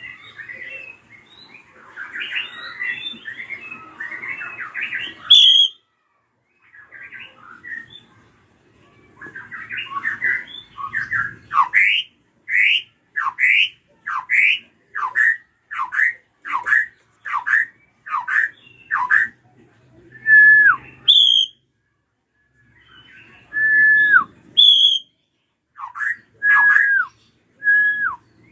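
Drongo (srigunting krantil) calling: a jumbled chatter of notes, then a run of about a dozen quick down-slurred whistles, then a few held whistles that each drop sharply at the end.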